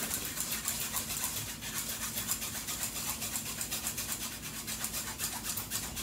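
Wire whisk scraping batter through a fine-mesh metal sieve in fast, rhythmic brushing strokes, about six a second, as the batter is strained to make it smooth.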